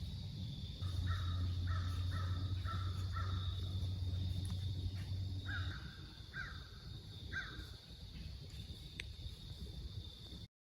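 A bird calling in short repeated calls, a quick run of about five, then three more a little later, over a steady chorus of crickets. A low steady hum sounds under the first half.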